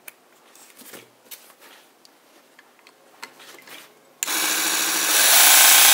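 Mini belt sander with a small 12–24 V DC motor switched on, running with no load. A few faint handling clicks come first. The motor and sanding belt start suddenly about four seconds in and get louder about a second later.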